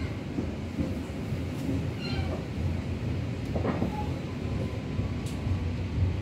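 Local passenger train running, a steady low rumble from the wheels and running gear, with a few short squeaky sounds about two seconds in and again near four seconds.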